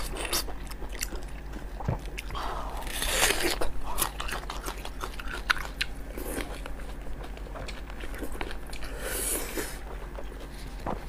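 Close-miked eating: a crunchy bite into a raw red onion, then bites of soft blood sausage being chewed, with scattered sharp clicks and crunches.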